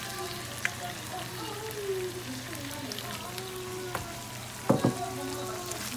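Food sizzling as it fries in a pot, a steady hiss, with two sharp knocks close together about three-quarters of the way through.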